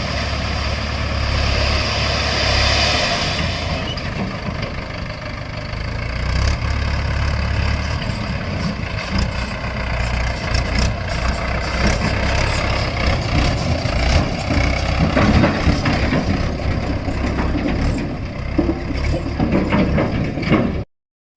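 Heavy diesel engine running, with frequent clattering knocks over it; the sound cuts off abruptly near the end.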